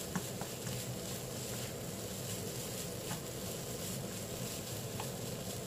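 A spatula stirring and turning egg fried rice in a wok off the heat, with a few light clicks of the spatula against the pan, over a steady background hiss.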